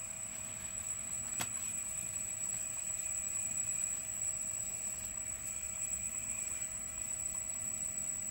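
Sanyo Denki P20B13500HXSH6E AC servo motor test-running after repair, turning smoothly with a steady high whine. A single click sounds about a second and a half in.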